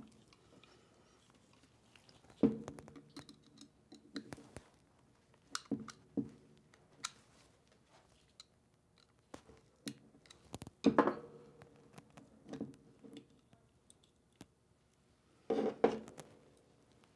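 Scattered small metallic clicks and taps, some with a short ring, as a small screwdriver pries the trigger's retaining ring off the aluminium body of a Fuji Spray M-Model spray gun. The loudest clusters come about two-thirds through and near the end.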